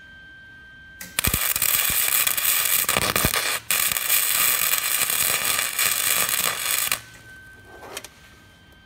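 Wire-feed welder arc crackling loudly for about six seconds, starting about a second in with one brief break a little past halfway. Weld is being built up inside a nut set over a broken exhaust manifold stud, to fuse the nut to the stud so that it can be turned out.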